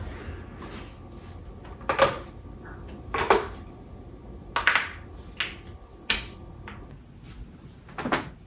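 Human joints cracking loudly: about six sharp pops, spaced irregularly over several seconds, the loudest about two seconds in and just after three seconds.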